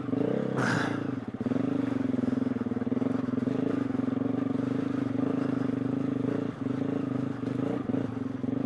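Single-cylinder four-stroke engine of a KTM 350 EXC-F enduro bike running at a steady throttle while ridden through thick mud. The throttle eases briefly about a second in and again past the middle.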